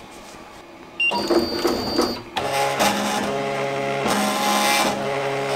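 Ricoma MT 1501 multi-needle embroidery machine moving its hoop frame: a short high tone about a second in, then from about two seconds in the motors whir in steady tones that shift as the frame steps around.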